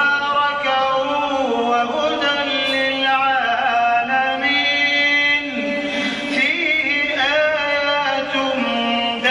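A single voice chanting a slow melodic line, with long held notes that step and waver in ornaments.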